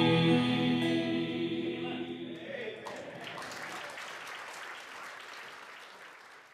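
Vocal trio with acoustic guitar holding the final chord of a gospel song, which dies away about two and a half seconds in; an audience then starts applauding, and the applause fades out.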